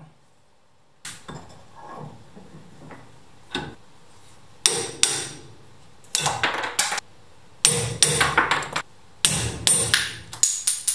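Hammer striking a chisel wedged against a screwdriver's red plastic handle, which is clamped in a bench vise, to split the old handle off. A few light taps come first, then about halfway four quick bursts of several sharp blows each.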